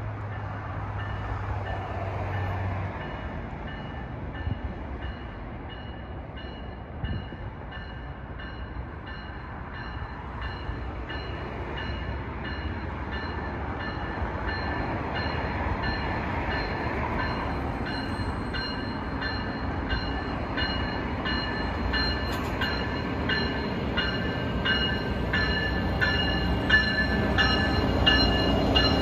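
Amtrak passenger train with a diesel locomotive approaching and rolling into the station: a low rumble that builds as it nears. The locomotive's bell rings steadily over it, about one and a half strikes a second, growing clearer toward the end.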